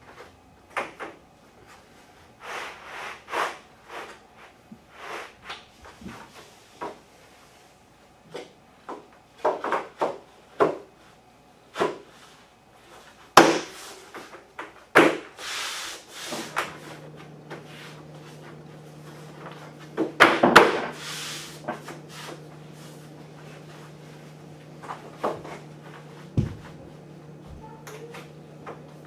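Laminate floor planks being handled, slid and dropped into their drop-and-lock joints: irregular wooden clacks and knocks, with scraping as boards slide over the plastic dimpled underlayment. A steady low hum comes in about halfway through.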